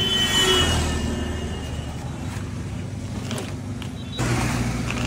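Road traffic passing with a steady low engine hum; a louder engine drone sets in about four seconds in.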